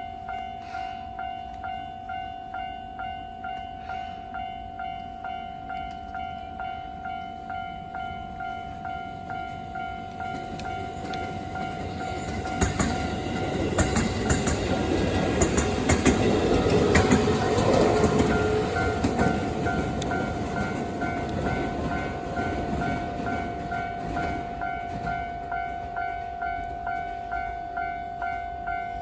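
A level-crossing warning bell rings in an even, steady beat. A train passes through the crossing, rising from about a third of the way in and loudest about halfway, with sharp clacks of wheels over rail joints, then fading while the bell keeps ringing.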